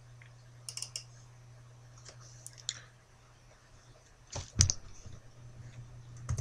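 Scattered clicks and taps at a computer desk: a pair of sharp clicks about a second in, a few fainter ticks, then a louder knock about four and a half seconds in, over a steady low hum.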